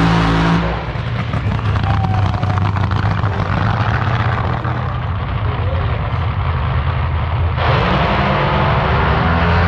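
Drag-racing car engine running loud, a dense rapid crackle over a deep steady drone. About three quarters of the way through the sound turns brighter and a rising engine tone comes in.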